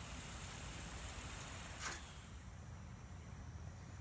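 Lawn sprinkler spraying water on freshly seeded ground: a steady high hiss over wind rumble on the microphone. The hiss cuts off abruptly a little past halfway, leaving low wind noise.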